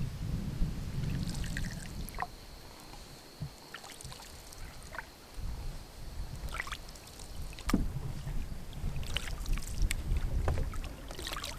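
Canoe paddling: paddle strokes splashing and dripping in calm water, with scattered sharp knocks and a low rumble underneath. A faint steady high whine runs through the first seven seconds or so.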